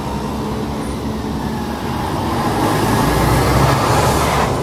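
Road traffic: a motor vehicle passing close by, its noise swelling through the middle and falling away near the end.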